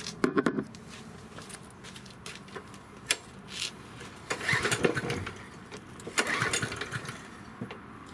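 Yard Machine 6 HP walk-behind lawn mower being pull-started: the recoil starter is yanked a few times in short, uneven bursts and the engine turns over without catching. This is typical of a mower that has sat unused for a long time and won't start.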